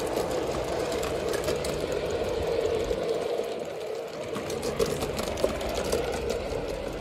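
Electric motor and gearing of a garden-railway model locomotive running along the track: a steady whirring hum, with light clicks scattered through it.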